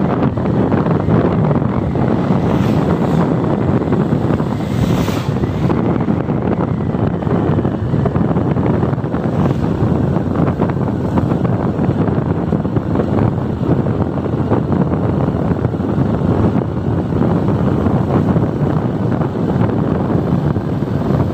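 Steady wind rumble buffeting the microphone of a moving motorcycle, mixed with the bike's running and road noise.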